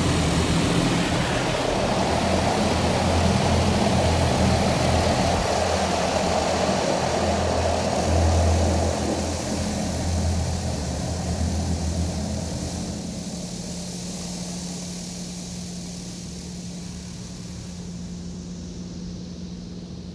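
High-pressure water jets of a Mark VII ChoiceWash XT touchless car wash blasting the car, heard from inside the cabin as a loud hiss over a pulsing low rumble. The spray eases off about twelve seconds in, leaving a quieter steady low hum.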